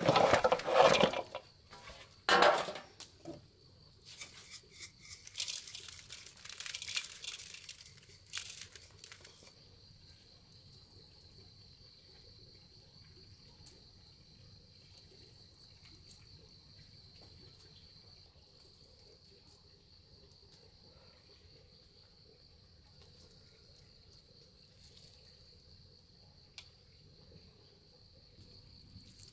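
Sharp crinkling and rustling handling noises in the first nine seconds, loudest in the first second and again at about two and a half seconds, then a faint, steady, high-pitched insect chorus that continues alone.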